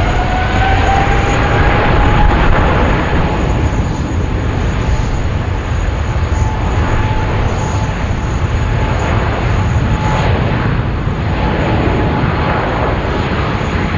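Boeing 777-300ER's GE90 turbofans at takeoff thrust: loud jet engine noise with a whine that rises over the first couple of seconds, then holds steady.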